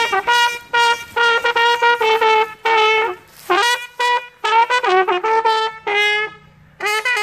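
A trumpet playing a tune in short phrases of held notes, with brief breaks between them.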